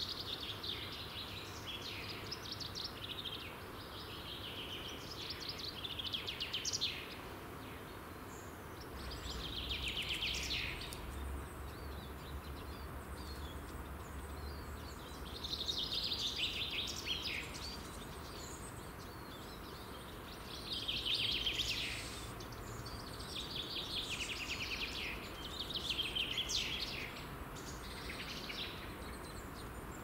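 Forest birdsong: a songbird repeating short, quick trilled phrases every few seconds over a steady background hiss, with a low rumble underneath for a few seconds in the middle.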